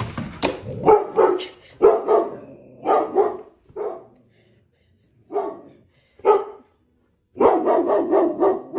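Dog barking in short bursts with pauses between, then a quick run of barks near the end.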